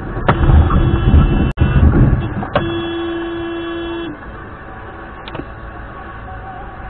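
Car horn held for about a second and a half, a steady single-pitched blast, sounded as an SUV cuts across close in front. Before it, loud rumbling road and cabin noise from the dashcam car fills the first two seconds.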